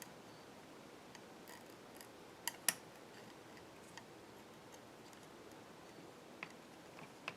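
A few light clicks and taps of small parts being handled while an LCD panel is pressed into place on its contacts: two close together about two and a half seconds in, the second the loudest, and a couple more near the end, over quiet room tone.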